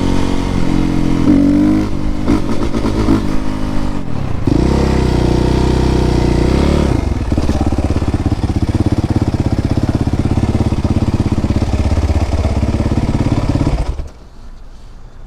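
Suzuki RM-Z450's single-cylinder four-stroke engine running. Its revs rise and fall over the first few seconds, then it settles to a steady idle and cuts off suddenly near the end.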